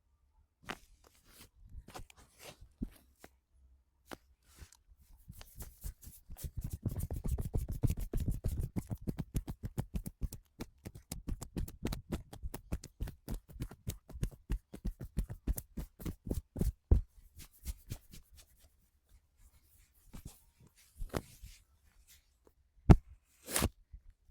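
A massage's hands striking skin in a quick run of small slaps or taps, about seven a second, lasting some ten seconds. A few single sharp clicks and knocks come before and after the run, the loudest about a second before the end.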